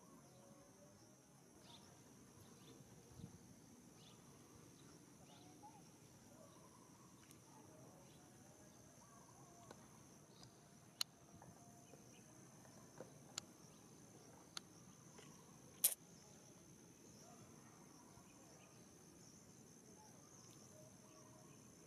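Faint, steady high-pitched chirring of insects, with a handful of sharp clicks in the middle, the loudest a little past halfway.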